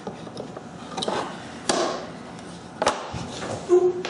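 A micrometer being handled and set down into its foam-lined wooden case: a few separate knocks and clicks of metal against wood, the loudest near the end.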